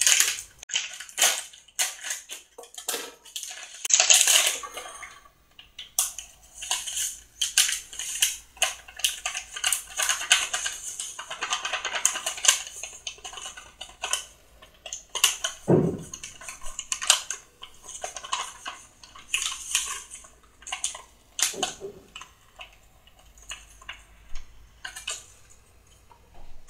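A plastic bag of brownie mix crinkling and rustling as it is opened and emptied into a glass bowl, with many quick crackles and scattered clicks and taps.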